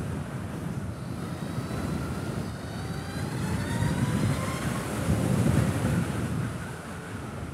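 Wind buffeting the microphone of a Zero electric motorcycle at road speed, swelling in the middle. The motor's faint whine rises and falls in pitch above it.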